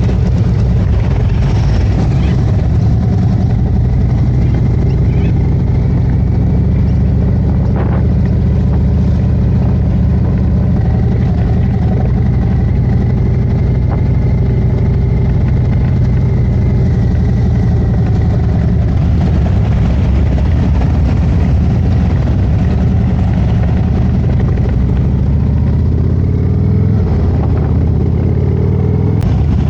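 Harley-Davidson Road Glide's V-twin engine running steadily under way, with the engine note rising near the end as it accelerates.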